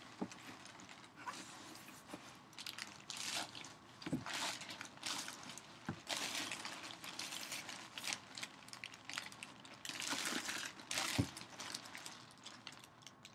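Packaging rustling and crinkling in irregular swishes, with a few sharp clicks, as a jersey is handled and unwrapped by hand.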